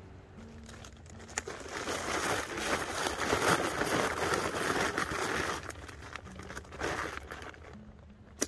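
Plastic and nylon crinkling as a food bag is stuffed with food, trash and toiletries, building up to the loudest in the middle and dying down. There is a single sharp click near the end.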